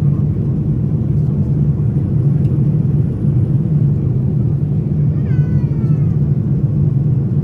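Steady in-flight cabin noise of a Boeing 787-9, a deep even rumble of engines and airflow heard from a window seat. A little past five seconds in, a brief high squeal falls in pitch.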